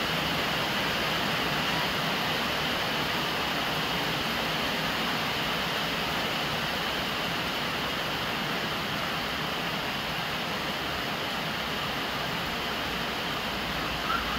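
Steady rain, with a stream of rainwater pouring from a plastic downpipe and splashing onto the wet lid of a large water jar. A brief short sound stands out near the end.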